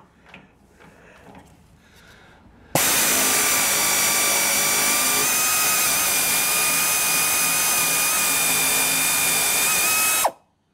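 Air ratchet running steadily for about seven and a half seconds, a hiss with a high whine, as it spins out a radiator-support bolt. It starts suddenly a few seconds in and cuts off sharply near the end, after some faint sounds while it is fitted to the bolt.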